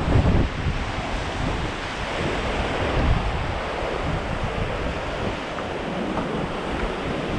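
Strong mountain wind blowing steadily, with gusts buffeting the camera's microphone in low, uneven thumps.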